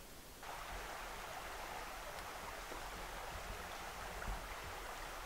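Steady rushing of a forest stream, cutting in abruptly about half a second in.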